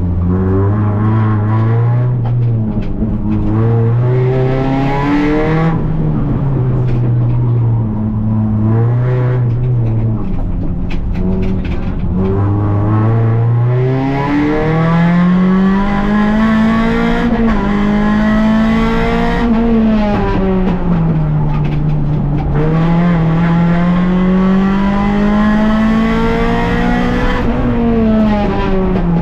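Rally car engine heard from inside the cockpit at full attack. Its pitch climbs and drops again and again as the driver works up and down the gears, settling into higher, longer pulls in the second half.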